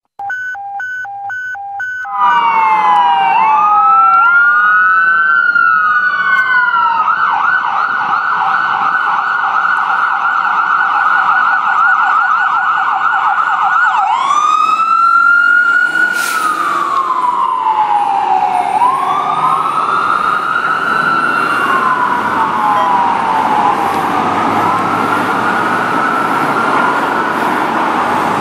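Whelen electronic sirens on a fire rescue engine responding to a call. First a couple of seconds of short pulsed blasts on one pitch, then two siren tones wailing up and down out of step. About seven seconds in they switch to a fast yelp for several seconds, then go back to the slow rise-and-fall wail, with city traffic underneath.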